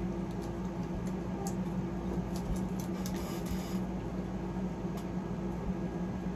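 Light crinkling and clicking of plastic packaging being handled, most of it about two to four seconds in, over a steady low hum.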